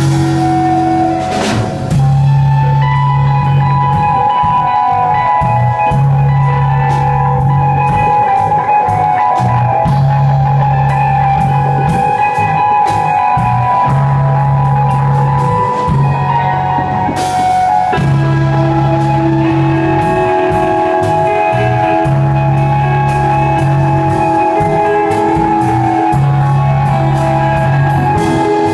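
Live rock band playing: a drum kit keeps steady cymbal strokes under long held notes, over a low bass part that repeats in blocks every couple of seconds.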